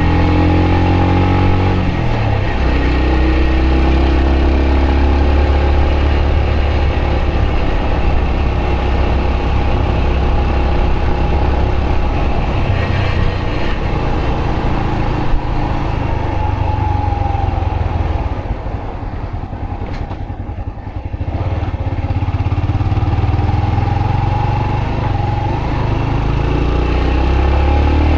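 Yamaha YBR125's single-cylinder four-stroke engine running while riding. Its note drops about two seconds in. It goes quieter for a few seconds about two-thirds of the way through, then picks up again.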